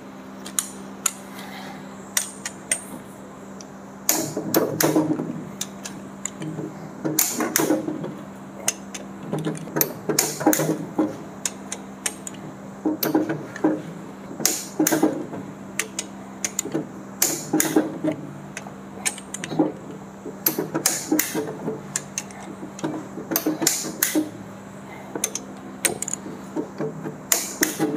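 Torque wrench ratcheting and clicking in repeated bursts as the crankshaft main bearing cap bolts of a Toyota Fortuner engine are tightened to 140 Nm, with metal clinks in between.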